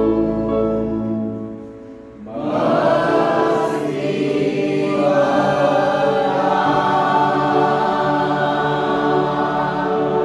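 Mixed choir of men's and women's voices singing in harmony: a held chord fades out about a second and a half in, then the voices come back in together a little after two seconds and hold long notes.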